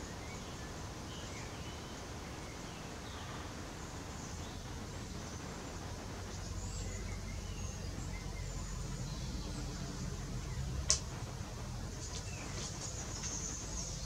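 Small birds chirping faintly and here and there over a low steady rumble that swells a little about halfway through, with one sharp click a few seconds before the end.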